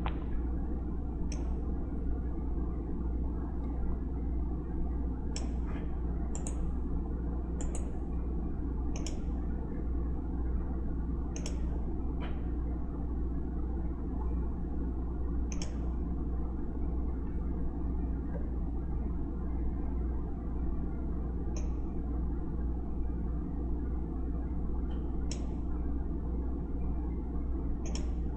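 Steady low electrical hum and room noise from the recording setup, with about a dozen short, sharp computer-mouse clicks at irregular intervals.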